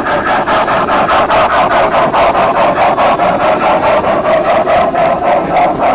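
Large-scale model train running close by, with a steady rhythmic beat of about four to five pulses a second.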